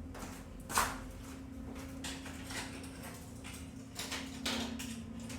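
Objects being moved and set aside on a workbench: a knock just under a second in, then scattered soft scrapes and clicks, over a steady low hum.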